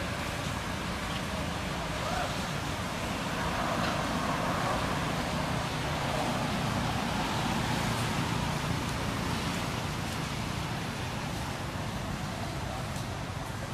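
Steady outdoor background noise, a low rumble under a hiss, with no distinct single sound standing out.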